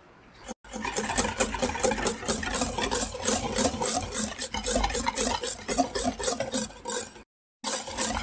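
Stainless-steel wire balloon whisk beating eggs and sugar in a bowl, a fast run of wet scraping and clicking as the wires sweep through the mixture and tap the bowl. It starts about half a second in and breaks off briefly near the end before starting again.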